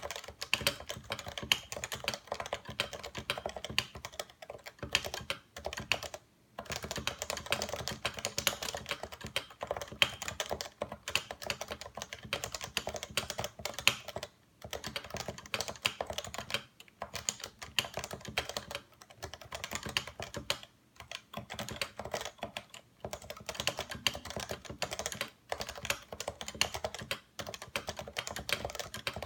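Continuous fast typing on a Realforce 87U Topre keyboard with 55 g electrostatic capacitive switches, a dense run of soft keystrokes broken by short pauses every few seconds.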